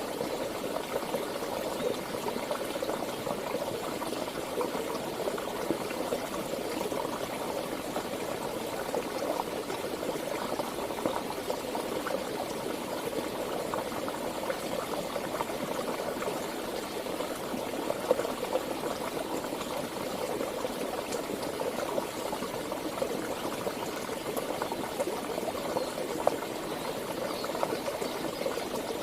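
Mountain river flowing: a steady rush of water with fine irregular splashing.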